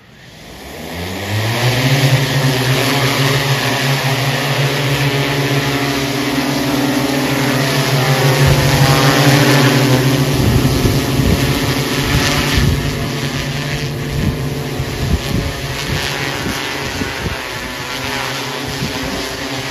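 Battery-powered six-rotor agricultural spray drone spinning up its rotors with a rising hum, then flying with a loud, steady drone. About halfway through, gusts of rotor wash buffet the microphone and the tone wavers as the drone climbs away overhead.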